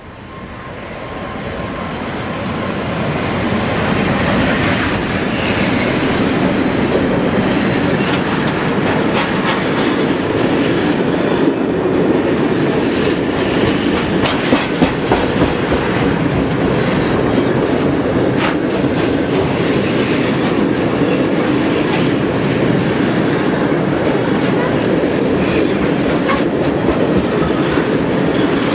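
Long freight train of open-top wagons, hauled by an electric locomotive, passing close by. The rumble swells over the first few seconds as it comes in, then holds steady as a clatter of wheels over rail joints, with a run of sharp clicks and knocks in the middle.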